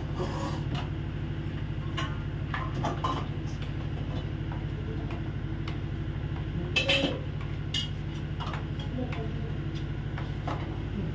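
Steady low drone of a ship's engine and machinery carried through the cabin, with scattered clinks of spoons and ladles against metal pots and dishes, the loudest about seven seconds in.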